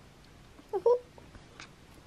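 Newborn Siberian husky puppy squeaking twice in quick succession about a second in: short, high cries that slide in pitch.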